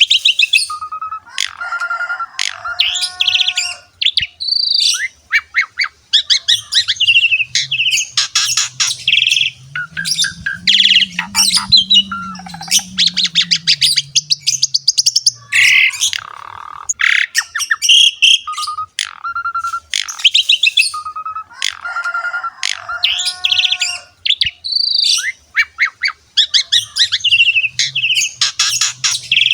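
Pied starling (jalak suren) singing a long, varied song: clear whistles, rapid chattering and harsh squawking notes in quick succession.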